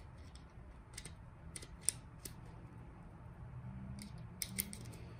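Dummy .22 LR rounds being pressed one by one into an extended 10/22 rifle magazine: a handful of short, sharp clicks spread out, the loudest about two seconds in and another near the end.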